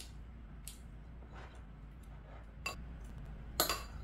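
A metal spoon clinking and scraping against a ceramic rice bowl: a couple of sharp clinks, the loudest near the end.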